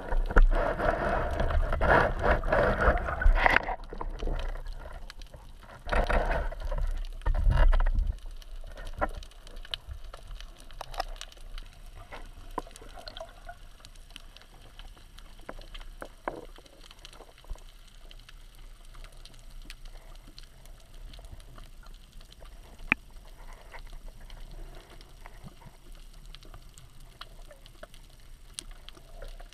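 Underwater sound heard through a GoPro camera housing: water rushing and rumbling against the housing in two surges during the first eight seconds, then a quiet background of fine crackling and scattered clicks, with one sharp click about 23 seconds in.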